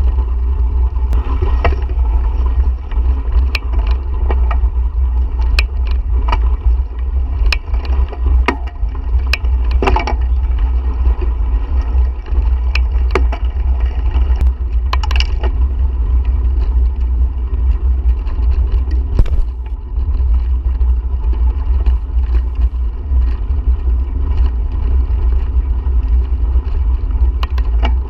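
Wind buffeting the microphone of a camera on a moving bicycle: a heavy, steady low rumble. Scattered sharp clicks and rattles come through it, most of them in the first half.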